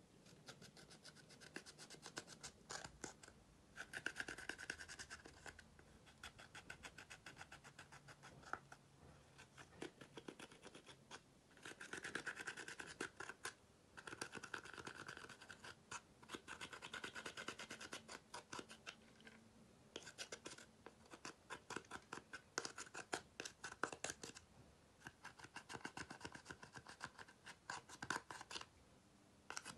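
Metal-tipped tool scraping pressed eyeshadow out of a makeup palette's pans: quick, rapid scratching strokes in bursts of a few seconds, with short pauses between them.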